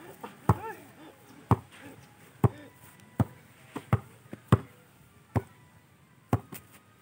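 Basketball bouncing on bare ground: about ten short, sharp thuds at uneven intervals of roughly half a second to a second, as in slow dribbling.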